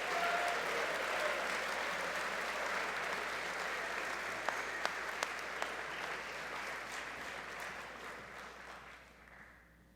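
Audience applauding, a steady clapping that fades away over the last two seconds.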